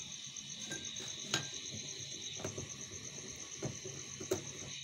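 Crickets chirping steadily in a fast, even pulse, with a few sharp clicks and knocks of a metal pan being handled; the two loudest clicks come about a second in and near the end.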